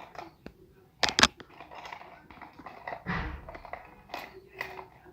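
Handling noise from small objects being worked by hand: two sharp clicks about a second in, a dull thump around three seconds in, and scattered light knocks and rustles.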